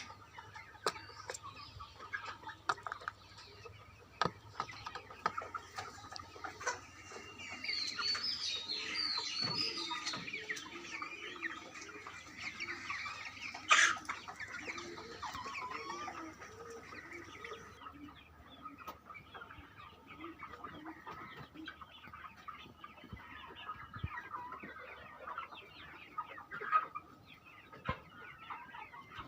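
A flock of broiler chickens clucking and calling, with scattered small taps and a single sharp knock about halfway through.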